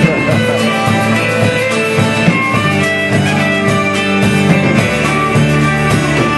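Live band playing: strummed electric and acoustic guitars with electric bass, and a fiddle playing the melody over them.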